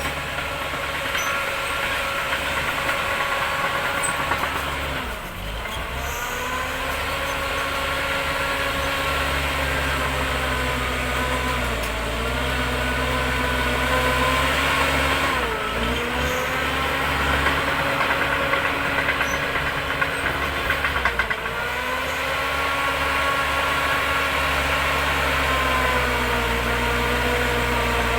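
Shantui DH10B2 mini bulldozer's diesel engine running steadily, its pitch dipping briefly and recovering about four times. A few short sharp knocks come through around two-thirds of the way in.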